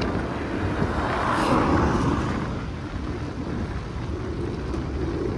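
Road bike tyres rolling on asphalt at speed, a steady rushing hum, with a louder swell between one and two seconds in.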